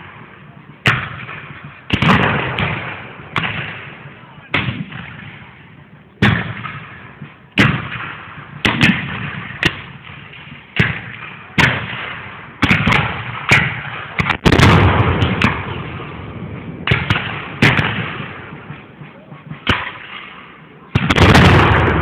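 Black-powder musket fire in a reenactment battle: about twenty irregular shots, roughly one a second, each with a short trailing echo. Two louder, longer blasts come about midway and near the end.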